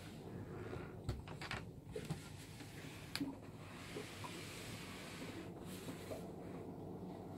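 Low steady hum with a few light clicks and knocks between about one and three seconds in, the handling noise of a handheld camera brushing past a wooden cabin door.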